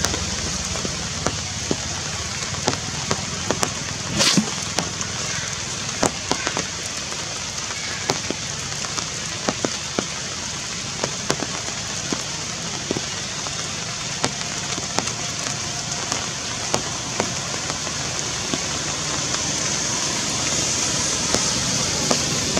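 Forest ambience: a steady high-pitched hiss with irregular sharp ticks and crackles throughout, and one louder crack about four seconds in.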